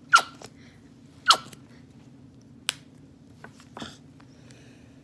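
Small squeeze bottle of acrylic paint being squeezed: two short, sharp sputters about a second apart as paint is squirted out, then a single click and a few faint knocks.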